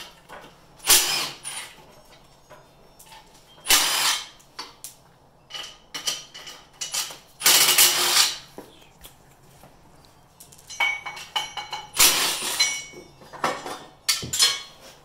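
Cordless Milwaukee impact driver with a socket, run in several short spurts on the axle-flange nuts, the longest about a second.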